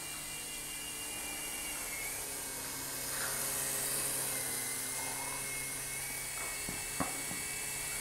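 Phantom 6010 RC toy helicopter in flight: its small electric motors whine high and steady over the whir of the rotor blades, a little louder around three to four seconds in. A single short tick comes about seven seconds in.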